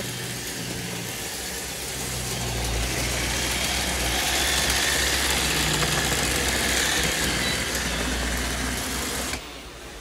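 Robot vacuum cleaners running on upholstery: a steady whirr of suction motor and brushes with a low hum, growing louder in the middle and cutting off suddenly near the end.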